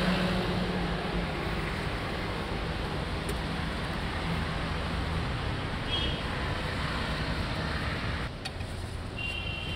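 Steady roadside traffic noise with a low hum, a little quieter and duller from about eight seconds in.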